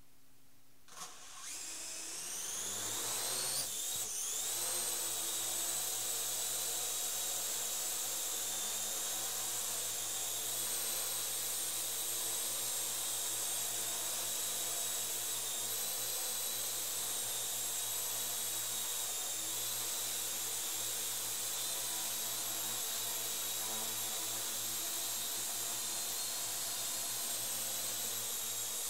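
Parrot AR.Drone quadcopter's four electric motors and propellers spinning up with a whine that rises in pitch over a few seconds, then holding a steady high whine and propeller buzz as it hovers. A short click comes about a second in, just before the spin-up.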